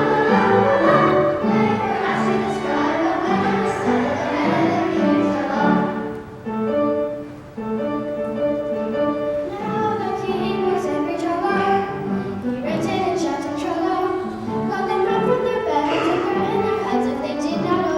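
Children's choir singing a song with instrumental accompaniment, dipping briefly quieter about six to seven seconds in.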